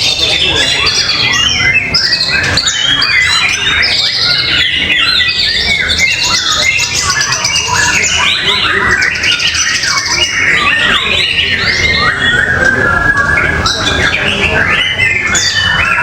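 Several caged songbirds singing against each other in a contest: a dense, unbroken mix of overlapping whistles, trills and rapid chattering phrases.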